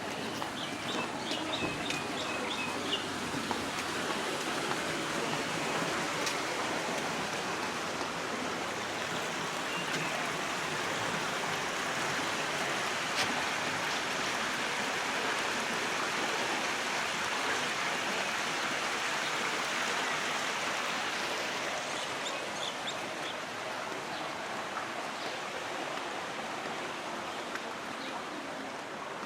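Steady rushing noise outdoors, with a few short high bird chirps about a second in and again near the end.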